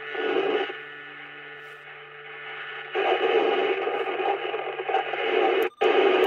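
Received audio from a President McKinley CB transceiver's speaker in FM mode: static with faint steady tones of distant signals and a low steady hum, heard while listening for long-distance propagation on the 10–12 metre bands. Near the end the sound drops out in short gaps as the channel steps from 37 to 36.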